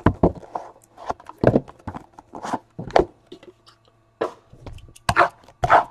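Cardboard trading-card boxes and cards being handled: irregular taps, scrapes and rustles, with several louder knocks toward the end.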